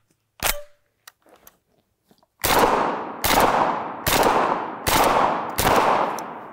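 Panzer BP-12 12-gauge semi-automatic bullpup shotgun firing slugs: five shots in quick succession, about one every 0.8 seconds, each ringing out and fading before the next. A single sharp click comes about half a second in.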